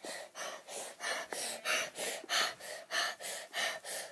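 Rapid, heavy panting close to the microphone, about three quick breaths a second.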